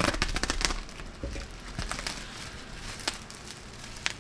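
Crackling and clicking of a small item and its packaging being handled and opened: a quick flurry of crackles at the start, then a few separate clicks.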